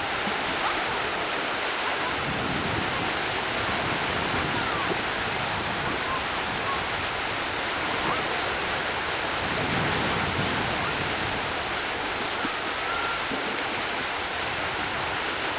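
Steady rush of small waves breaking and washing in the shallows.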